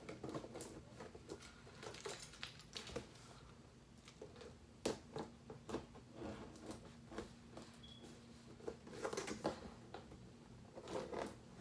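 Tool packaging being handled and opened by hand: scattered faint clicks, taps and rustles, a little busier about 9 seconds in.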